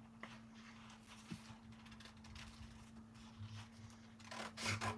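Quiet room tone with a faint steady hum, and a sheet of craft paper being handled, with a soft rustle near the end.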